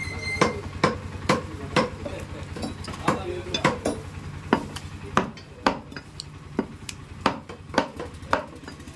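Cleaver chopping mutton: a run of sharp chops, about two a second, over a steady low hum.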